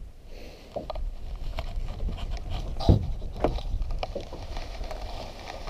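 Small waves lapping against a small boat, with a steady low rumble of wind on the microphone and scattered knocks and rustles of handling; the loudest knock comes about three seconds in.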